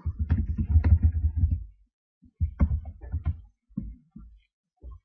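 Computer keyboard typing picked up as a run of dull low thumps with faint clicks, in two clusters, then a few single keystrokes near the end.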